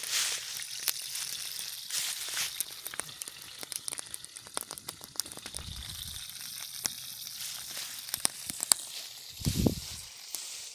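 Wood campfire crackling: a steady hiss broken by many sharp, irregular pops. Two short low rumbles come through about 6 and 9.5 seconds in.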